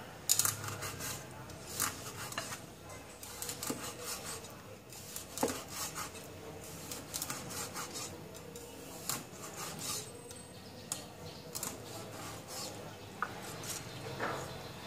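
Cleaver slicing raw fish on a wooden chopping board: irregular sharp knocks of the blade meeting the board, some in quick clusters, with the blade rubbing through the flesh between them.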